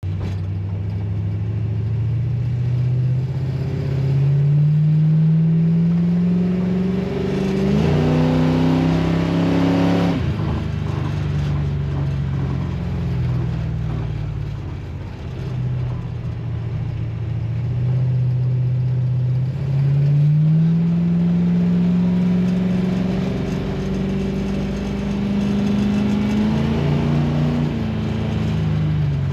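Car engine running under load and being revved, its pitch climbing twice and then falling away sharply, about ten seconds in and again near the end.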